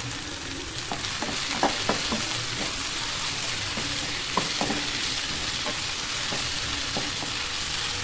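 Onions, tomato, green chillies and ginger-garlic paste sizzling in coconut oil in a nonstick kadai while a spatula stirs them, the paste being sautéed to cook off its raw smell. Short scrapes and knocks of the spatula against the pan come about once or twice a second from about a second in.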